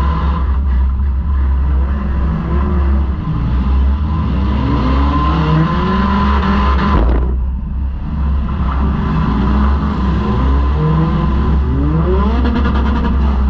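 A four-cylinder demolition derby car's engine, heard from inside the car, revving up and down continuously as the car drives and maneuvers, with a brief dip about halfway through before it revs up again.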